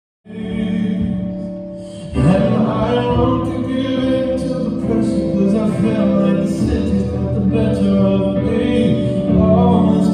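Music for a dance combo with singing voices, starting just after a brief silence and getting fuller and louder about two seconds in.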